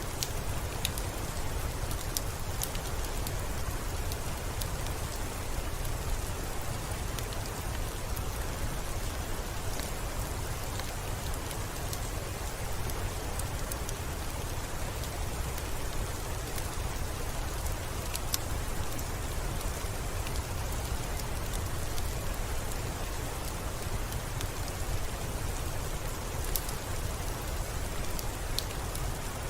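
Steady gentle rain falling on a window, with a low rumble underneath and scattered sharp ticks of single drops.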